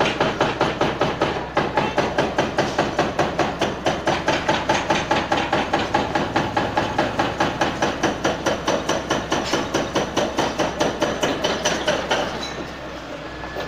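Hydraulic breaker on a Hitachi excavator hammering concrete masonry: a fast, even pounding of about five blows a second that stops about twelve seconds in.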